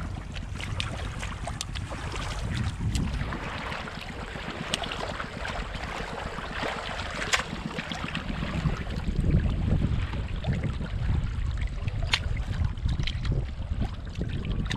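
Hands sloshing and scraping through wet mud in shallow seawater while digging for clams, over a steady low rumble of wind on the microphone, with a few short sharp clicks.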